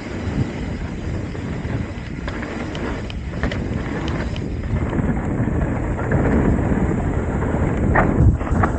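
Trek Top Fuel 8 mountain bike descending a dirt singletrack: wind buffets the camera microphone over the tyre rumble, with scattered clicks and rattles from the bike over bumps and a harder knock near the end.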